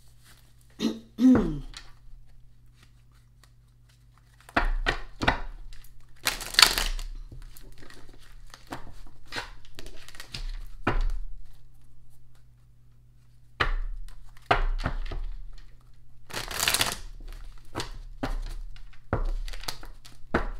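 A deck of divination cards being shuffled by hand: irregular rustling, flicks and slaps of the cards, with two longer riffling rushes.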